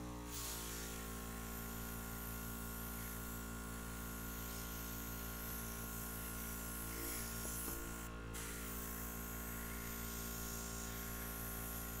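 Mini airbrush compressor running with a steady buzzing hum while the airbrush sprays ink with a hiss of air. The hiss drops out for a moment about eight seconds in.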